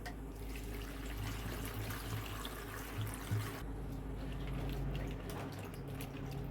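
Water running from a kitchen tap, cutting off about three and a half seconds in, followed by scattered drips.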